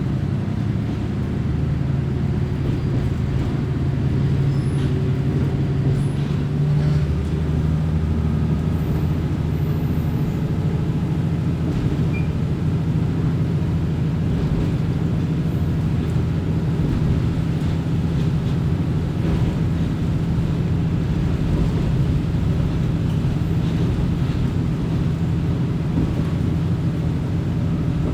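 Diesel railcar running sound heard from inside the car: a steady low engine drone and rumble of the wheels on the track, the engine's tone shifting about seven seconds in.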